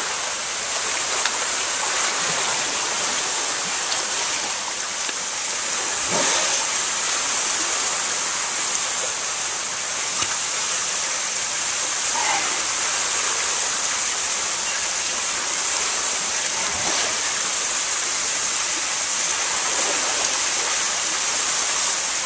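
Steady rushing of running water, with a couple of faint knocks.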